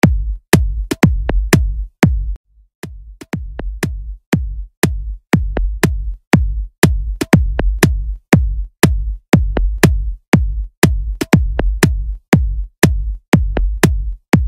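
Background music with a steady beat: sharp, evenly spaced strokes over deep bass pulses.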